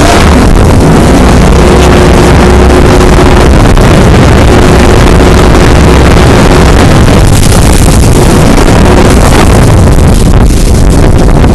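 Speedboat running at speed, heard on board: a loud, steady mix of engine and rushing water, with wind buffeting the microphone.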